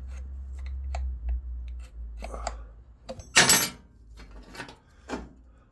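Metal tools being handled: light clinks and rattles, with one louder scraping clatter about three and a half seconds in, over a low rumble of camera-handling noise through the first half.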